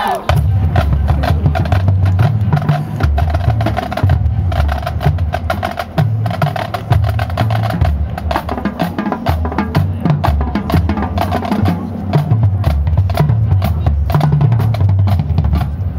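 Marching band drumline playing a percussion feature: rapid snare strokes and clicks over bass drums.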